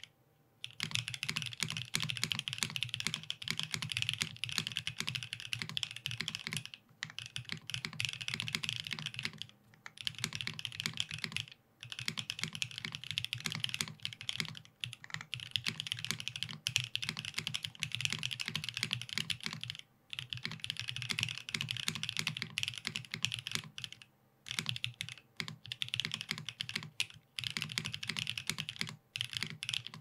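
Geonworks Frog Mini custom mechanical keyboard being typed on quickly and continuously: lubed DK Iced Latte switches in an aluminium plate under GMK Dualshot keycaps, giving a dense run of keystrokes. The typing stops for short pauses every few seconds.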